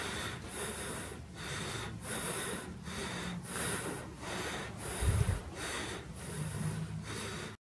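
Fast, heavy breathing close to the microphone, a breath roughly every two-thirds of a second, with one low thump about five seconds in.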